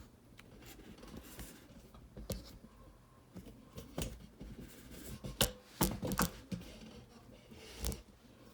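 Handling sounds while unpacking: scattered sharp clicks and knocks of hard parts being picked up and set down, with some light rustling. The loudest knocks come in a cluster a little past halfway, and one more comes near the end.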